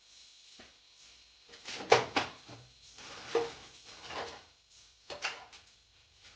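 A series of short knocks and clatters of objects being handled, the loudest about two seconds in and another pair about five seconds in.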